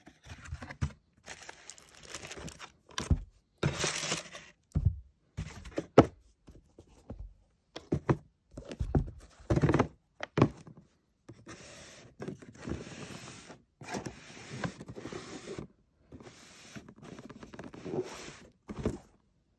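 Cardboard shoebox being opened and handled, with rustling and scraping as a pair of Nike Air Max 90 Futura sneakers is lifted out and turned over, and several sharp thunks as the shoes and box are knocked and set down.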